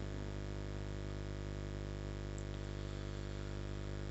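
Steady electrical hum with a faint hiss from the sound system, an even buzz at the mains pitch and its overtones that does not change.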